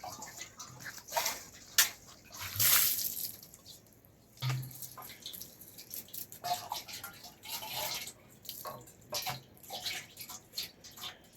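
Water splashing and dripping in short, irregular spills, with a louder rush of water about two and a half seconds in.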